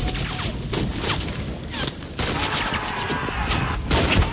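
Battle gunfire: several rifles firing many overlapping shots at an uneven pace, in a sustained fusillade.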